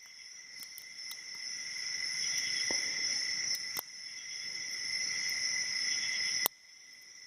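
Faint clicks of a shallow hook pick lifting the pins of a Mako SFIC padlock under a tension wrench, a few sharp ones standing out, over a steady high-pitched chirring tone.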